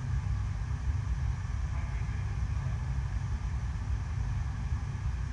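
Artificial surf-wave machine running: a sheet of pumped water rushing continuously up and over the curved ramp, heard as a steady low rumble with a fainter hiss of water above it.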